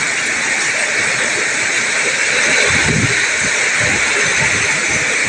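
Heavy rain pouring steadily with a constant hiss, with a brief low rumble about three seconds in.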